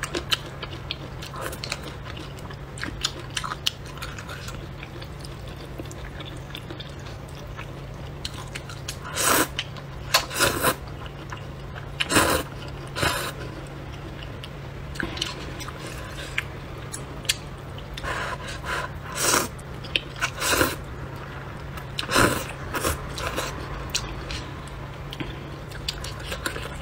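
A person slurping and chewing sweet potato glass noodles in hot-and-sour broth, close to the microphone: short wet slurps come in clusters with softer chewing between them, over a steady low hum.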